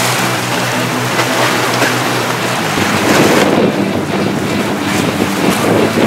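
Strong wind gusting across the microphone over the wash of sea waves.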